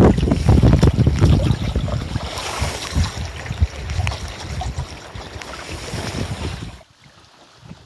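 Strong wind buffeting the microphone over water splashing against the hulls of a sailing canoe raft, gustiest in the first couple of seconds and easing after. About seven seconds in it drops away abruptly to a much quieter wash.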